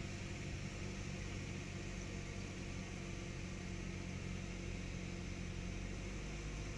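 Cessna 172's piston engine and propeller droning steadily in flight, heard faintly inside the cabin.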